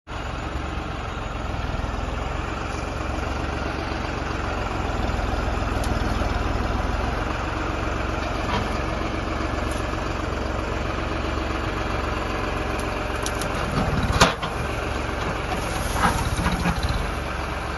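Heavy machine's engine running steadily at idle. A single loud knock comes about fourteen seconds in, followed by a few lighter knocks a couple of seconds later.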